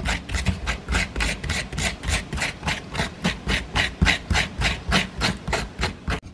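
A hand-held coconut shredder scraping strands from the flesh of a fresh coconut half, in quick, even, repeated strokes about four a second.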